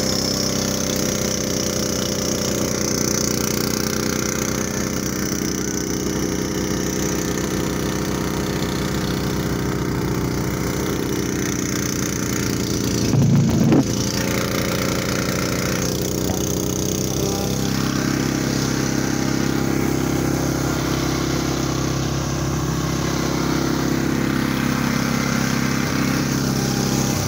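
Yamaha 1070 snowblower engine running steadily under load while clearing and throwing snow. A brief louder rush comes just past the middle, and a few seconds later the engine note shifts lower.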